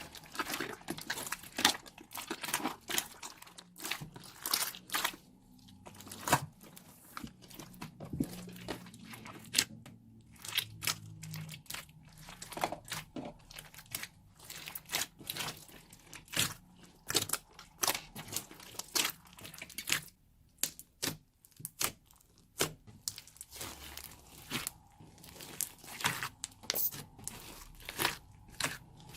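Slime mixture being squeezed and kneaded by hand, making quick irregular crunchy crackles and sticky pops.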